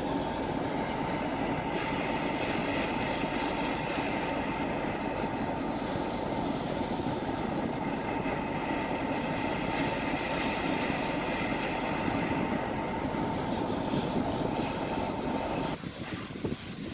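Diesel locomotive hauling a train past at close range: a steady engine drone with a steady high tone, and wheels running on the rails. Near the end the sound cuts off abruptly to something quieter.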